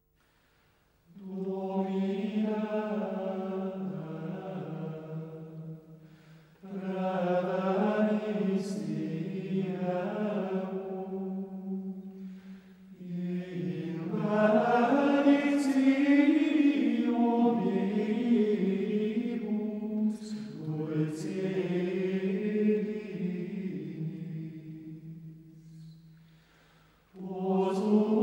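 Unaccompanied chant sung in unison, in four long phrases with short breaths between them; a fifth phrase begins near the end.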